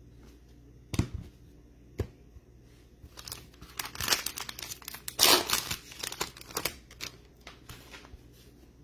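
Two short sharp taps, then the wrapper of a 2022 Select Draft Picks football card pack crinkling and tearing as it is ripped open, loudest about five seconds in.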